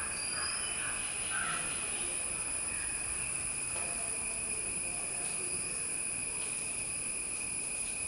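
Whiteboard marker squeaking faintly in short strokes as it writes, over a steady high-pitched background drone.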